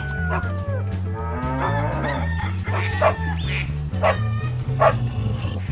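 A dog barking a few times, in short separate barks, over background music with a steady bass line.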